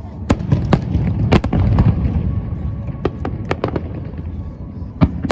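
Fireworks going off: an irregular run of sharp bangs and pops over a continuous low rumble, with a cluster of pops about three seconds in.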